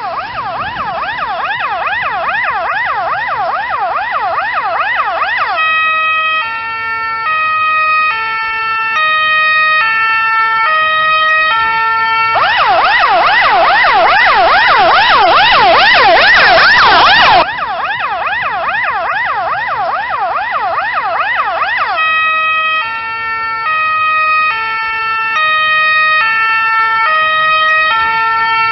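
Finnish ambulance siren switching between modes. A fast yelp of rapid rising-and-falling sweeps alternates with a stepped pattern of alternating held tones, each lasting several seconds, and the yelp is loudest around the middle.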